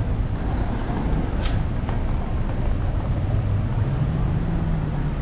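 Outdoor city street sound: a steady low rumble of passing traffic, with one sharp click about a second and a half in.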